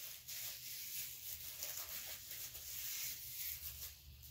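Thin clear plastic wrapper crinkling and rustling as a plastic utensil is worked out of it.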